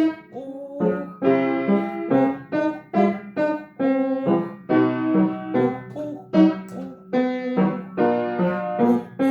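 Piano accompaniment for a vocal warm-up: short detached notes and chords struck two or three times a second, each fading quickly.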